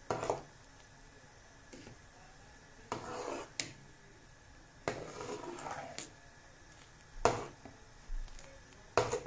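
A spoon stirring a thick cucumber and tamarind mixture in a cooking pot: separate scraping strokes, with a few sharp knocks of the spoon against the pot.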